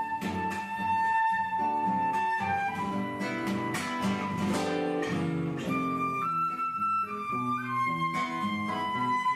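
Live instrumental music: a melody of long held notes over plucked string chords.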